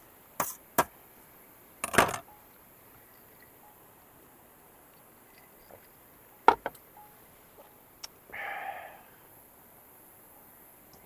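Scattered sharp clicks and knocks of objects being handled, the loudest about 2 s in and 6.5 s in, with a short rustling burst just after 8 s.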